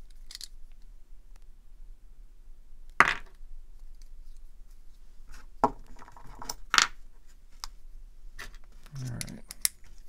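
Small metal clicks and clinks as the parts of a pocket knife and small tools are handled during reassembly of the pivot. The sharpest click comes about three seconds in, a few more follow at uneven intervals, and there is a soft thump near the end.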